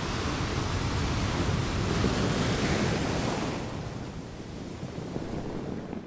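Ocean surf, a steady rush of waves that ebbs after about three and a half seconds and stops just before the end.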